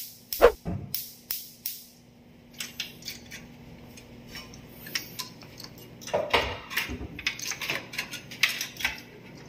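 Irregular metallic clicks, clinks and rattles from hands working on the wiring and metal parts inside an opened gas range. There is a loud knock about half a second in, a busy run of clicks at the start, then sparser clicks and a busier cluster about six seconds in.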